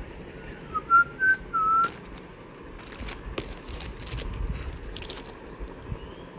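A person whistles a short phrase of four notes about a second in, the last note held a little longer. Then clear plastic sleeves crinkle and rustle in a quick run of crackles as they are handled.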